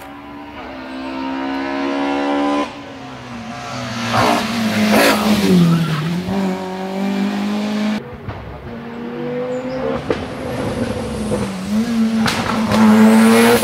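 Race car engine under hard acceleration on a hill climb, its pitch stepping down at gear changes about three and eight seconds in and dipping about six seconds in before climbing again. A quick series of sharp cracks comes right at the end.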